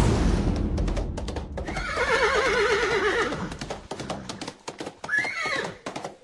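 Horse sound-effect sting: a whoosh, then galloping hoofbeats with a horse whinnying in a long, wavering, shaking call about two seconds in, and a second short rising-and-falling call about five seconds in.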